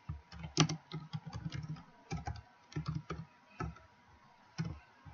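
Typing on a computer keyboard: a quick run of key clicks for about two seconds, then a few scattered key presses that trail off near the end.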